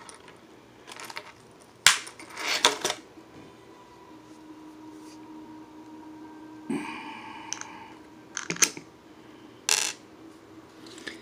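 Small metal clicks and rattles of a Ruger LCP II pistol being taken down by hand, with a key prying up its takedown pin. A cluster of clicks comes about two seconds in and more come near the end.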